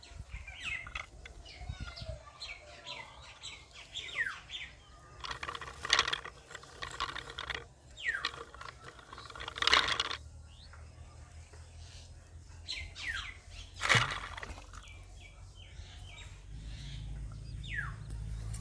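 Birds chirping, many short falling calls one after another. Three loud, sudden sounds break in about a third, half and three quarters of the way through, and a low hum comes up near the end.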